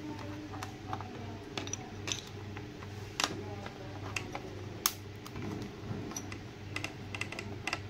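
Scattered light metallic clicks and taps of small hand tools working on a printer power-supply circuit board, over a steady low hum.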